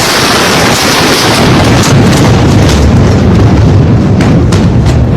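Explosion sound effect: a very loud, distorted roar with a heavy low rumble and hiss over it, and a few sharp crackles near the end.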